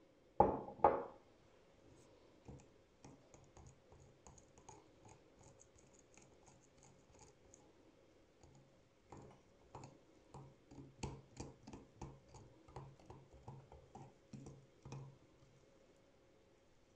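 Food-preparation handling sounds: two sharp knocks about half a second apart near the start, then light scattered clicks and taps, becoming a stronger, regular run of taps at about three a second in the second half.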